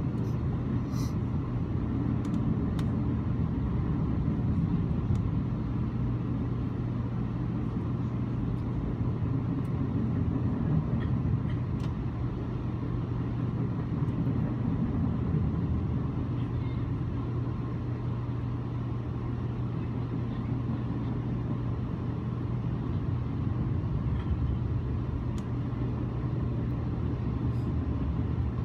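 Steady rumble of a moving passenger train heard from inside its dome car, with a constant low hum beneath it.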